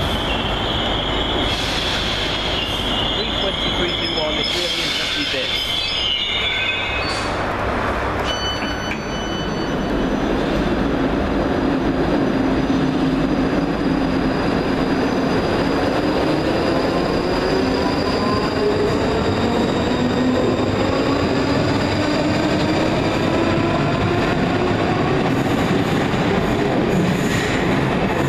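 ScotRail Class 320 electric multiple unit running into the platform, its wheels squealing in a high tone for the first several seconds. Then another ScotRail electric multiple unit pulling away, its traction motor whine dipping and then rising steadily in pitch as it accelerates.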